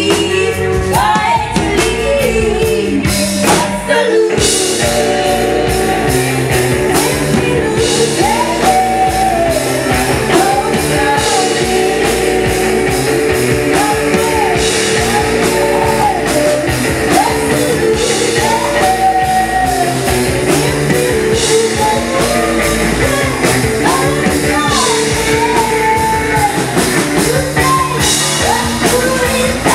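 Live rock band playing loudly: a singer over electric guitar, bass and drums. After a brief drop about four seconds in, the cymbals come in and the full band plays on.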